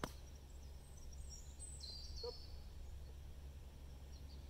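A single short strike of a wedge splashing through bunker sand on a greenside bunker shot, heard from a few metres away. Birds chirp faintly about two seconds in, over a steady outdoor background.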